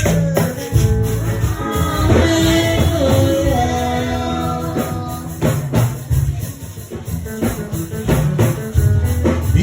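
Yoruba gospel praise music: singing with held notes over a strong bass line and regular percussion strikes. The music thins out for a moment past the middle and then picks up again.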